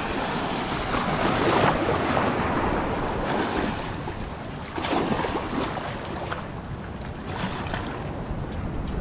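Choppy waves washing and splashing over shallow reef, swelling louder twice, with wind on the microphone.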